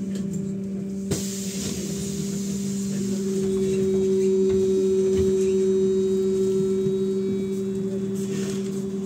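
Stationary battery-powered trolleybus with a steady electrical hum from its onboard equipment, two held tones. A sudden hiss starts about a second in and fades slowly, and a shorter hiss comes near the end.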